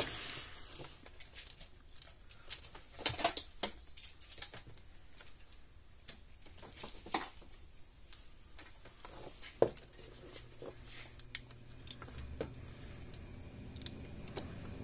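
Scattered light clicks and rattles of wire leads and a clip lead being handled on a workbench. A faint low hum comes in about two-thirds of the way through.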